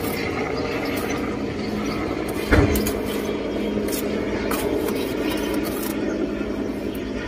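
Steady background hum and noise, with one short knock about two and a half seconds in.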